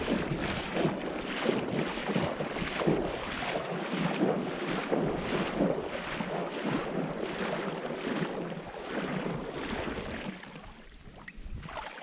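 Water slapping and splashing against a small boat's hull as it moves, in quick regular pulses of a little over two a second, with wind buffeting the microphone. The splashing dies down near the end.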